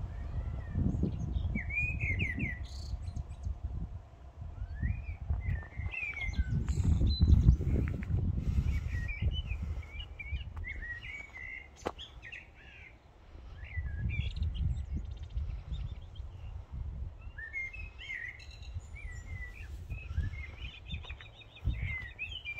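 Small songbirds chirping and singing in short phrases and trills, over a low rumble that swells and fades, loudest about seven seconds in.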